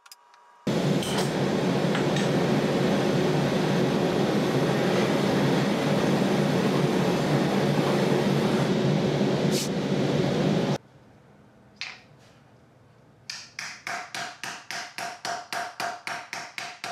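Gas torch hissing steadily for about ten seconds while annealing a thin fine-silver disc, cutting off suddenly. After a short pause, a hammer strikes the silver disc on a wooden stump about four times a second, sinking it into a dish.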